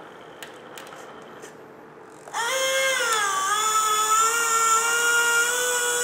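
Electric dump-bed lift motor of a 1/14-scale King Hauler RC dump truck starting up about two seconds in with a steady whine as it tips a bed loaded with gravel. Its pitch sags briefly just after it starts, then holds steady.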